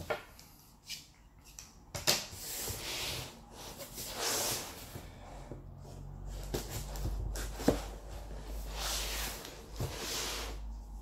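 A long cardboard shipping box being handled and opened with a knife: scratchy rustling and scraping of cardboard and packing tape in several stretches, with sharp knocks against the table, the sharpest a little past halfway.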